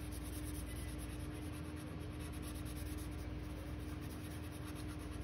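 Sharpie permanent marker colouring in on paper, its felt tip scrubbing steadily back and forth across the sheet.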